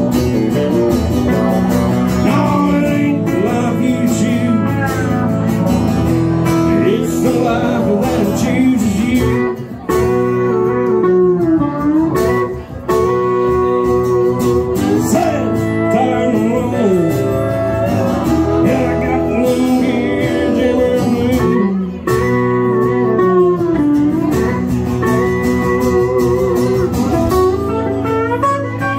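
Live country music: a strummed acoustic guitar with a pedal steel guitar playing sliding, bending lines.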